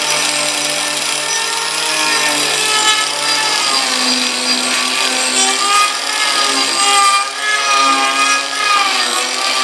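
Handheld angle grinder with its disc grinding into a wooden spiral, shaping the grooves. The motor whine holds steady at first, then wavers down and up in pitch from about four seconds in as the disc bears into the wood.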